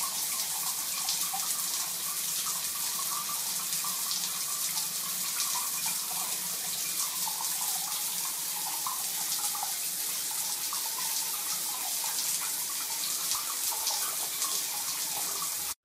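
Water running steadily from a bathroom sink tap, a constant hiss of the stream with no break.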